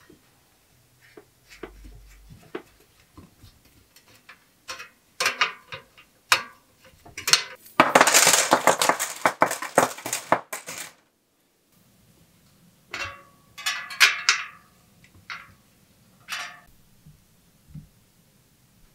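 Metal bike parts and tools clinking and knocking during hand assembly, with a dense rattle of rapid clicks lasting about three seconds midway.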